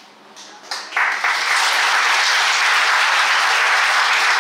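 Audience applauding, starting about a second in and then holding loud and steady.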